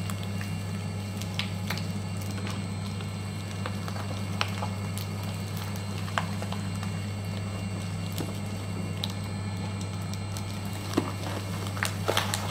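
Mini industrial shredder running with a steady low motor hum while its hook-toothed cutter blades grip and tear up cardboard boxes, with scattered sharp cracks and snaps as the card is ripped, several close together near the end.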